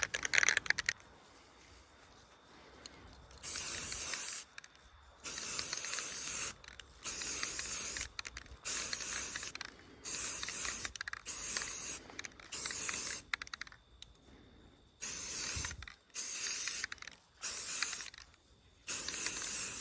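Aerosol spray paint can spraying in short bursts of about a second each, around ten of them with brief pauses between, beginning a few seconds in: a light dusting coat going on.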